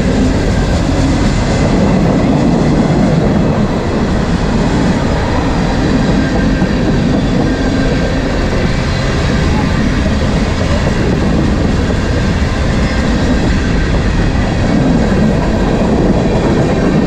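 Freight cars of a passing manifest train rolling by close at hand: a loud, steady rumble of steel wheels on the rails.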